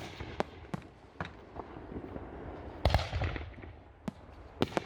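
Aerial fireworks exploding: a string of sharp bangs at uneven intervals, each with a short echo, the loudest a quick cluster of bursts about three seconds in.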